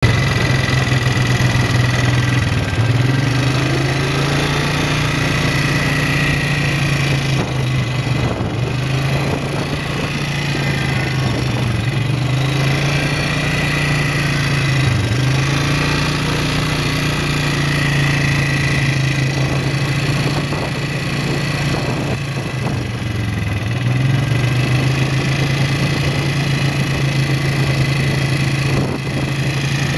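Quad bike (ATV) engine running steadily while riding along a dirt road, its pitch dipping briefly a few times before settling back.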